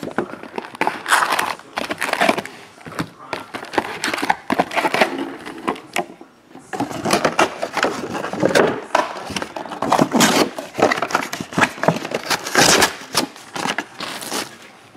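Rustling and crinkling of a cardboard trading-card hobby box being opened and its foil-wrapped packs handled, with irregular crackles and taps and a brief lull about six seconds in.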